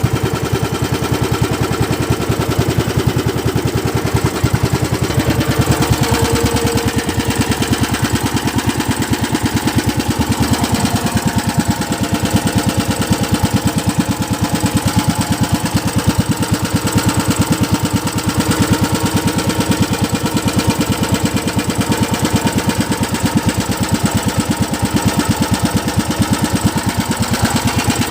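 A fishing boat's engine running steadily at an even speed, with a fast, regular chugging of firing strokes.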